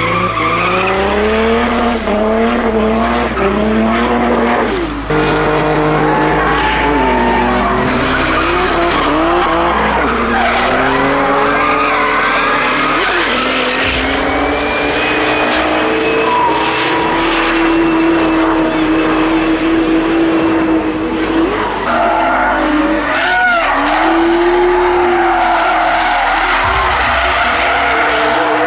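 Drifting BMW cars, their engines revving up and down and holding high revs while the rear tyres spin and squeal in long slides. Sound from a succession of cars and passes.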